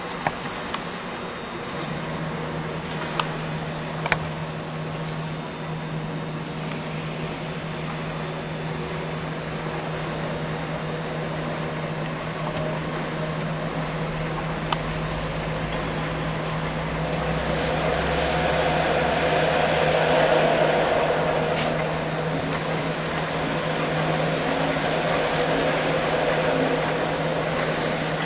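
Aircraft tug's drive running steadily with a constant hum while towing a heavy aircraft. It grows louder for a few seconds about two-thirds of the way through, and there are a few sharp clicks early on.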